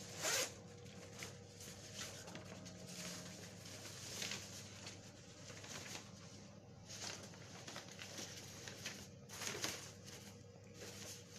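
Synthetic fabric of high-visibility safety vests rustling as they are handled, lifted and smoothed flat: irregular soft swishes, the loudest right at the start and another about nine and a half seconds in.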